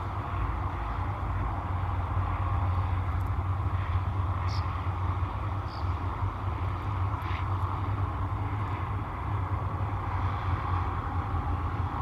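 Steady low rumble and hiss of outdoor background noise, with two faint, short, high chirps around the middle.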